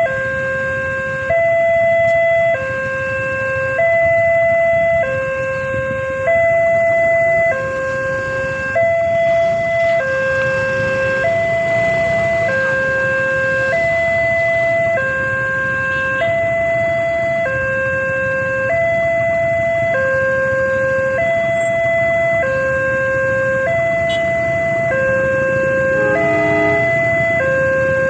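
Railway level-crossing warning alarm sounding in a steady two-tone hi-lo pattern, each tone held a little over a second, repeating without a break. Motorcycle engines idle underneath.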